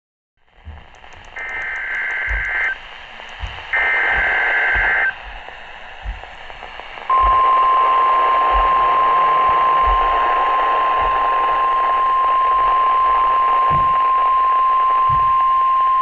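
NOAA Weather Radio broadcast over static: two short two-tone SAME data bursts, then at about seven seconds the steady 1050 Hz warning alarm tone, held about nine seconds. This is the alert signal that heads an emergency weather message.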